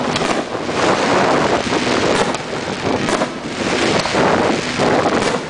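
Steady rushing of wind buffeting the microphone, with a few faint pops of distant fireworks bursting.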